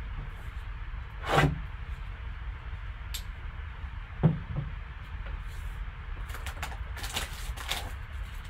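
Gloved hands handling a sealed cardboard trading-card box. There is a swish as it slides, a knock as it is set down about four seconds in, then a run of short crisp rustles and scrapes near the end as it is turned over and picked up.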